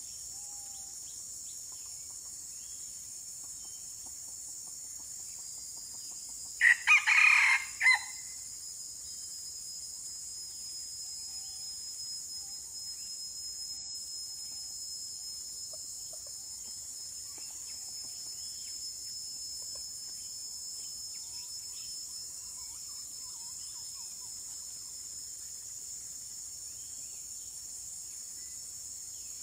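Red junglefowl rooster crowing once, a short, broken crow about seven seconds in, over a steady high hiss of insects.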